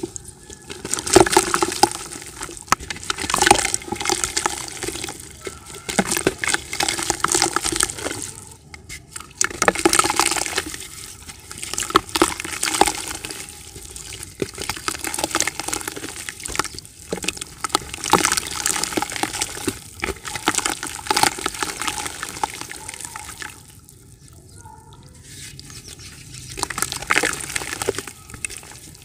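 Hands snapping and crumbling chunks of dry yellow dirt into a bucket of water: dense crackling snaps with splashing and trickling, coming in bursts with brief pauses about nine seconds in and again near the end.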